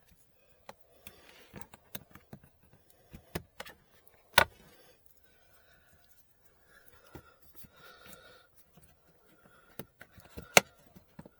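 Plastic push plugs being pressed back into a car's interior trim panel: scattered clicks and knocks, the loudest about four seconds in and another near the end, with faint handling of the plastic between.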